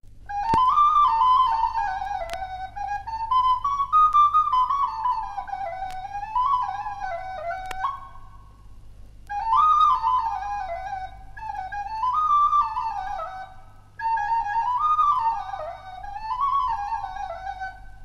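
A solo flute starts about half a second in and plays a wavering, ornamented melody in short phrases that rise and fall, with brief breaks between them. Under it runs a steady low hum and a few sharp clicks from an old LP transfer.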